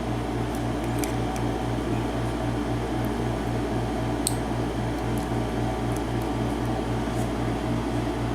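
Steady mechanical hum like a fan or air conditioner running, with a low throb that pulses about four times a second. A few faint light clicks sit on top of it.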